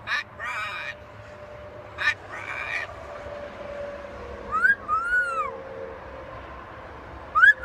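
Green-winged macaw vocalizing: a few short throaty squawks and chatter in the first three seconds, then a pair of rising-and-falling whistles about halfway through and again near the end.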